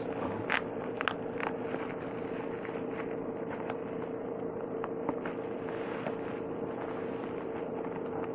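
Toy packaging being handled and opened: a few sharp clicks and crackles in the first second and a half, then faint scattered rustling, over a steady background hum.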